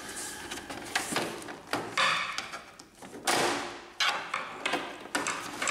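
Hard plastic scanner cover of an Epson XP-2100 printer being worked free of its two hinge pins: a few sharp plastic clicks and knocks, with short scraping slides about two and three seconds in.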